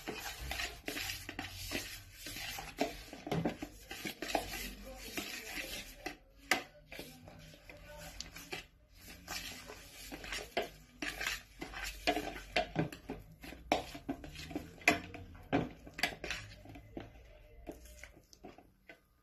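Metal spoon scraping and knocking against a plastic mixing bowl as butter and sugar are beaten together by hand. The scrapes and taps come fast and unevenly, then stop just before the end.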